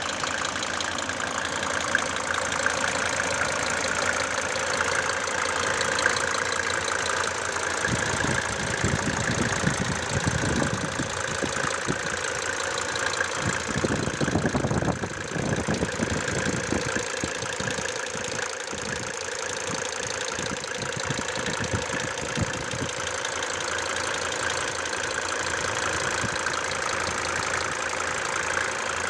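Mercedes-Benz OM602 five-cylinder turbo diesel idling steadily with a rapid, even knocking sound.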